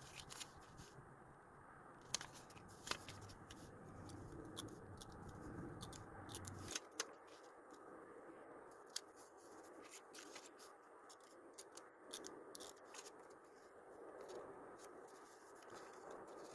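Faint desk handling of stickers and paper: scattered small clicks and soft rustles. A low hum underneath cuts off about seven seconds in.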